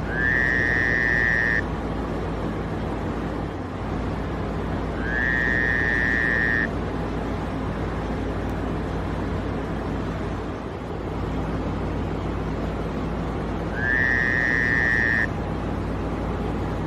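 Three long, high-pitched squeals, each about a second and a half, rising slightly at the start and then held steady. They are presented as the scream of a bristle worm. Underneath runs a steady low hum.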